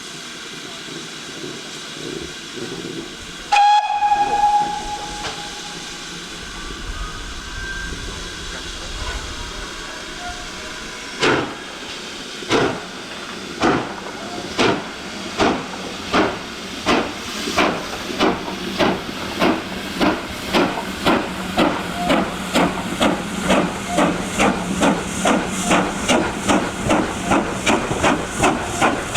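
Steam locomotive whistle blown once, then the locomotive starts away: its exhaust beats begin slowly and quicken steadily to about two a second, over a hiss of steam.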